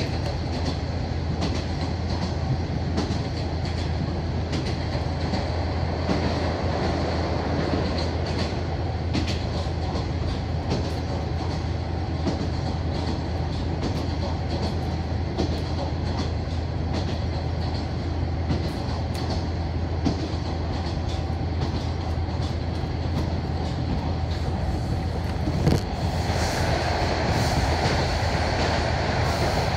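Cabin sound of a KiHa 48 diesel railcar running: a steady low diesel drone under wheel and rail noise, with scattered clicks from the track. About 26 s in the sound turns louder and hissier as the train enters a tunnel.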